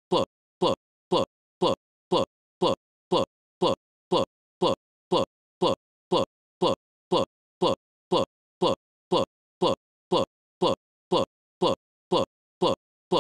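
A very short snippet of audio repeating over and over like a stuck loop, about two bursts a second with silence between, each a brief sweep falling in pitch: a digital playback or encoding glitch.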